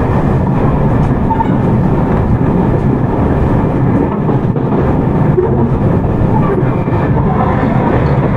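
Onboard running sound of a Tokyu 9020 series electric commuter train with Mitsubishi full SiC-MOSFET traction inverters: a steady rumble of wheels on rail while the train runs.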